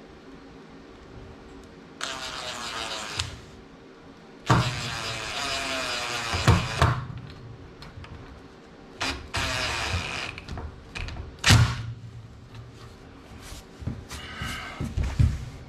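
Cordless drill driving screws in several short runs, the motor whine dropping in pitch as a screw bites in and tightens, with a few sharp knocks between runs.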